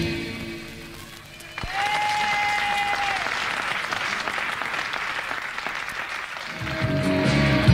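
Audience applause on a live bootleg tape recording between songs. The last notes of the song fade out at the start, and a steady high tone is held for about a second and a half from about one and a half seconds in. The band starts the next song near the end.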